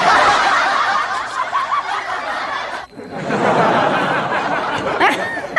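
Several people laughing loudly at once, their voices overlapping, in two long stretches with a short break about three seconds in.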